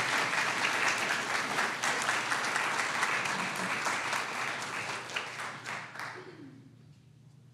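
Audience applauding, fading away over the last couple of seconds.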